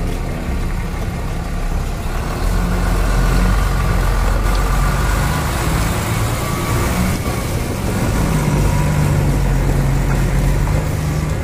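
Nissan Diesel CWA 260 tanker truck's diesel engine running under way, its low note shifting a few times and holding steady over the last few seconds.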